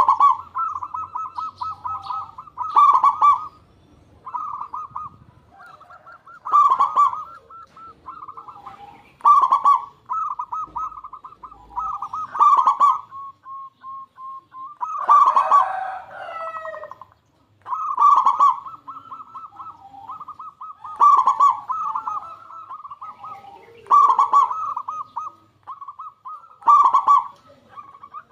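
Zebra dove (perkutut) cooing: a loud rippling trilled phrase about every three seconds, with softer pulsed notes in between.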